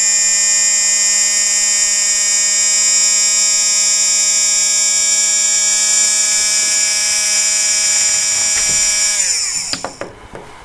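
Small 12-volt brushed DC motor running at speed with a high whine and hiss, its pitch slowly rising as the heated thermistor makes the regulator raise its speed and power. About nine seconds in the whine drops sharply in pitch and dies away as the motor winds down, with a few clicks.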